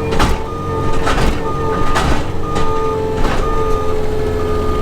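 Skid steer engine running steadily while its backup alarm beeps about once a second as it reverses. Four sharp cracks or clunks, about a second apart, break through over the engine.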